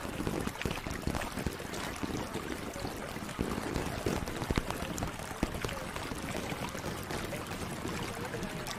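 Running, trickling water with many small scattered clicks.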